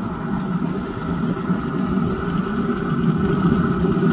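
Steady mechanical hum with a thin whine on top, from the Pit Boss Tailgater pellet grill running at temperature: its combustion fan blowing into the fire pot.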